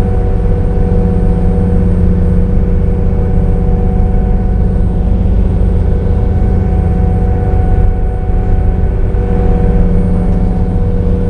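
Boat engine running steadily: a loud, even low drone with a steady hum of fixed tones over it.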